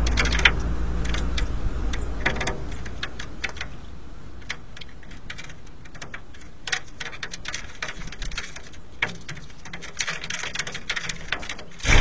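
European goldfinches pecking and cracking sunflower seeds on a window ledge: an irregular scatter of sharp clicks and taps, with a louder sudden burst right at the end as the flock takes off.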